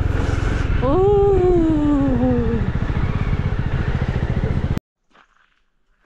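Motorcycle engine running loudly, revving up about a second in and then falling slowly in pitch as the throttle eases. The sound cuts off suddenly near the end.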